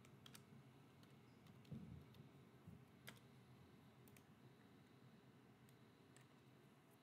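Near silence with a handful of faint, scattered computer keyboard and mouse clicks, and one soft low thump about two seconds in.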